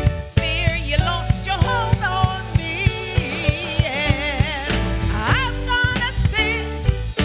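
Gospel worship music from a live church band: keyboard chords, drums and percussion playing a steady beat, with a singing voice holding wavering notes over them.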